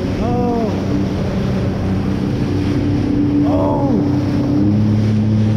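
Sea-Doo GTX jet ski running at speed across open sea, its engine drone stepping in pitch a couple of times under the rush of spray, hull slap and wind on the microphone. Two short rising-then-falling calls cut through, one right at the start and one about three and a half seconds in.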